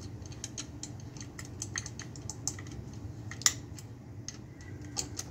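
Quick, irregular small metal clicks as a driver turns and seats the middle action screw on a Ruger M77 rifle, over a steady low hum.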